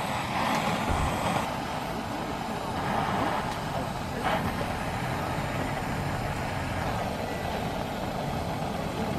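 Handheld butane gas torch burning with a steady hiss, its flame held against split firewood to light it. A short sharp click about four seconds in.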